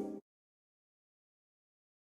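The last moment of a synthesizer-organ music intro fading out, then complete silence.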